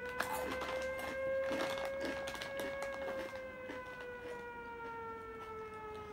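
A siren wails in one long tone, rising slightly and then slowly falling in pitch. Over it, a crunchy snack is chewed and foil snack bags crinkle in quick sharp crackles during the first few seconds.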